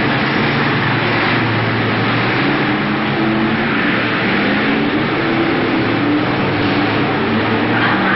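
Several BriSCA F1 stock car engines running hard at racing speed, blended into one steady drone whose pitches rise and fall as the cars accelerate and pass.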